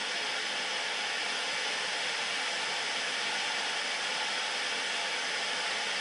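Static hiss from an old television on a channel with no signal: a steady, even rush of white noise.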